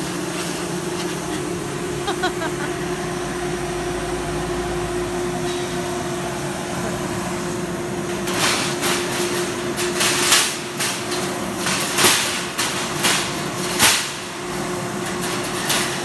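Steady machine hum and hiss with a held low tone from a CNC plasma cutting machine. From about halfway through, a run of sharp metallic clanks and rattles: cut sheet-metal parts knocking on the slatted steel cutting table as they are handled.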